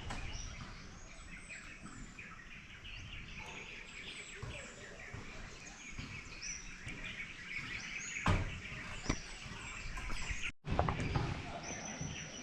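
Birds chirping and calling in a forest, many short rising chirps over a busy chatter. Near the end a steady high-pitched insect buzz sets in.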